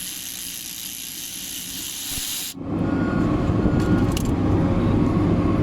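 A steady hiss, then an abrupt change about two and a half seconds in to a louder low rumble of a motor vehicle running.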